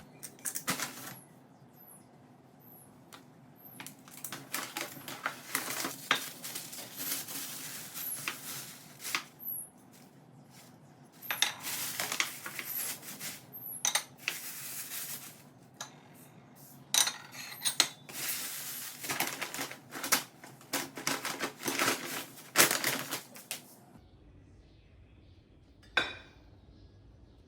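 Small hard objects clinking and clattering as they are handled, in bursts with short pauses between. The clatter stops about three-quarters of the way through, and one sharp knock follows a little later.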